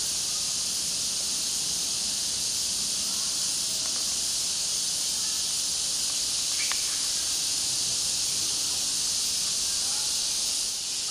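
Steady, high-pitched hiss of a cicada chorus, unbroken and even in level, with one faint tick about two-thirds of the way through.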